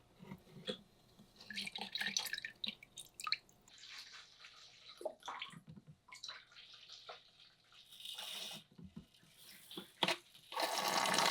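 Water sloshing and dripping in an aquarium while aquasoil substrate is scooped out, with irregular small clicks and splashes. A louder steady rush of pouring starts near the end.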